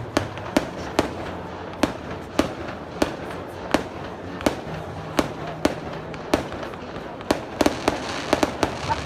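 Aerial fireworks shells bursting in a series of sharp bangs, about one every half second to second, coming faster in a quick flurry near the end.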